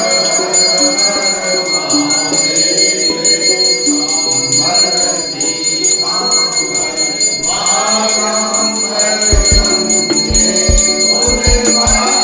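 Temple aarti: a hand bell rung continuously over group singing or chanting of a devotional hymn. From about nine seconds in, a drum beats in an uneven rhythm.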